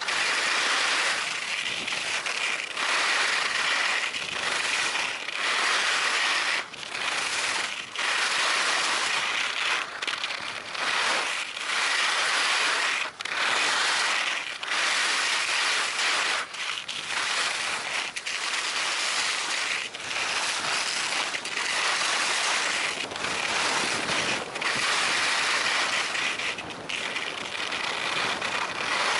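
Skis scraping and carving over snow on a downhill run, a continuous hiss that swells and drops with each turn and briefly dips between turns.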